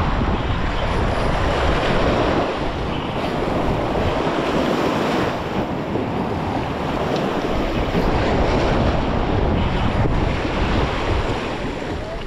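Steady wind buffeting the microphone over surf washing against the jetty rocks.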